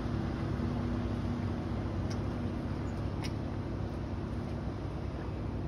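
Wake boat's engine heard from about 150–200 ft away: a steady low drone over an even hiss.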